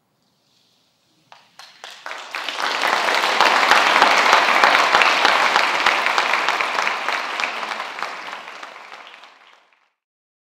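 Audience applauding at the end of a live piece: a few scattered claps swell within a second or so into full applause, which dies away over the next several seconds.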